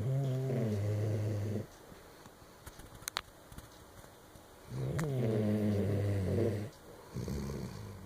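Dog snoring: two long, low snores about three seconds apart, each dipping in pitch as it starts and then holding steady, followed by a shorter, softer snore near the end.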